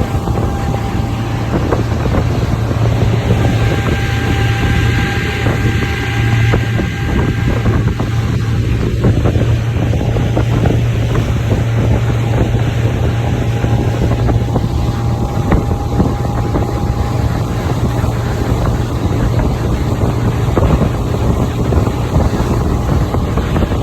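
Small tour boat's motor running steadily under way, a loud low hum, with wind buffeting the microphone.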